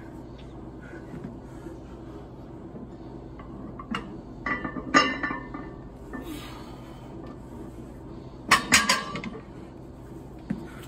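A loaded barbell being deadlifted: the weight plates clank and rattle against the bar as it leaves the rubber floor mat about five seconds in, and again as it is set back down about nine seconds in.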